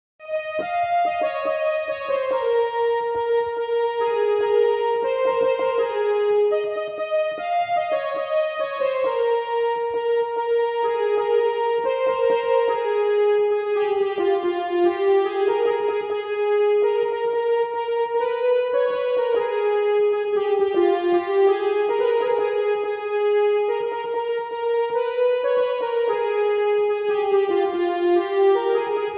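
Electronic keyboard playing a one-note-at-a-time melody of a vivah gaari, a traditional North Indian wedding song, with held, connected notes and no accompaniment.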